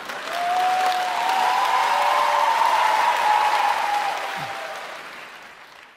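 Studio audience applauding, swelling just after the start and dying away over the last couple of seconds.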